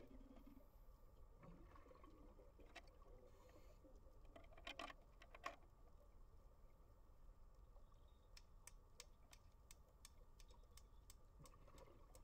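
Faint underwater ambience: a low steady rumble with scattered sharp clicks, a denser crackle of clicks about five seconds in, and a run of single clicks about two a second near the end.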